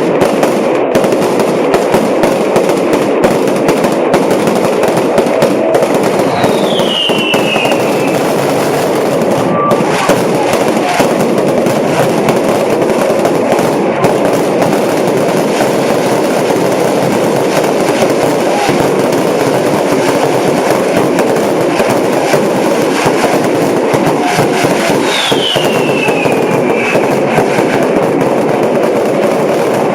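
Fireworks and firecrackers going off nonstop in a dense, rapid crackle, with two high falling whistles, one about seven seconds in and one near the end.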